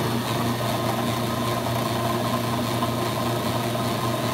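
AMMCO brake lathe running steadily, an even motor hum, with a little rattle from the disc feed gearbox drive: the rattle comes from the PTO not being lined up on the center line of the pulley's spinning axis.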